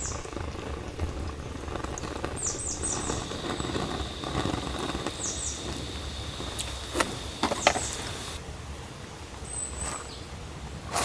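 Small birds chirping in quick groups of short, high, falling notes, with a thin steady high tone for several seconds in the middle. Two or three sharp clicks or knocks come about seven seconds in and are the loudest sounds.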